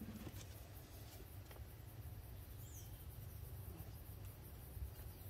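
Quiet outdoor ambience with a steady low rumble and one faint, short bird call about two and a half seconds in.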